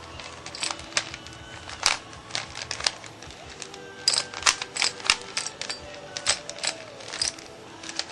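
Plastic Rubik's Cube layers clicking as they are turned rapidly, in quick irregular clacks several times a second, with faint music underneath.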